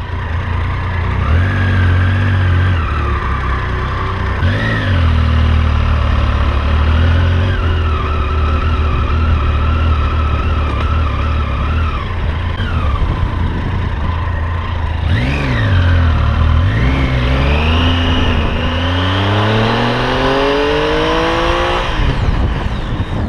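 Triumph Tiger 800 XC's three-cylinder engine running on the move, its pitch dipping and rising again a couple of times as the throttle is closed and opened, then climbing steadily in a long pull as the bike accelerates near the end.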